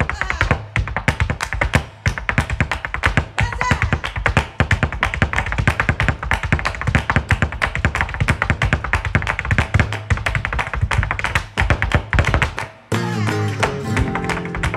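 Flamenco zapateado: a dancer's shoes strike the floor in a fast, continuous run of heel-and-toe beats in a farruca. The footwork stops abruptly about 13 seconds in, and a flamenco guitar takes over.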